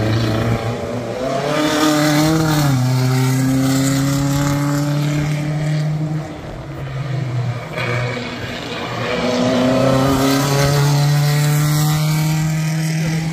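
Vintage small-displacement sports racing cars running at high revs on the circuit. One engine note steps down in pitch about two and a half seconds in and fades after about six seconds. A second car's engine builds from about eight seconds in and holds a steady high note.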